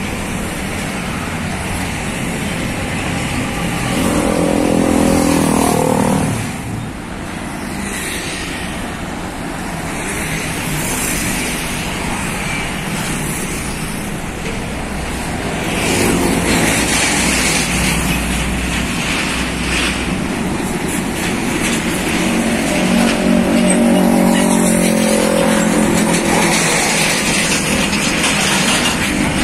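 Road traffic passing close by: trucks, including a Hino 500 car-carrier truck, and motorcycles, with a steady rumble of engines and tyres. Engine notes swell and fade as single vehicles go past, loudest a few seconds in and again later on.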